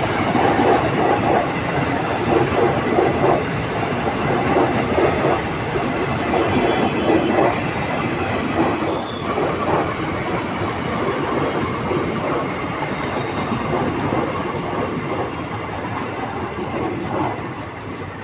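Indian Railways EMU train running on the rails: a steady, loud rumble and rattle of wheels and coaches. Several brief high-pitched wheel squeals cut through it, the strongest about nine seconds in. The running noise eases slightly near the end.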